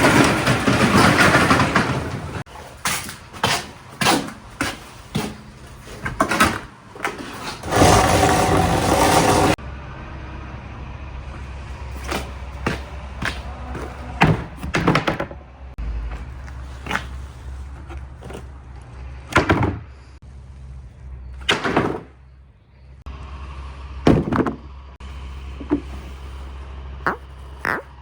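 Glass marbles running down a water marble run: sharp clacks and knocks as they hit the track and each other, with two stretches of rushing water, the first at the start and the second around eight seconds in.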